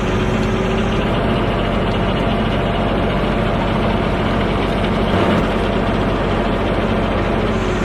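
A heavy machine's engine running steadily at a constant speed, with dense mechanical noise over it.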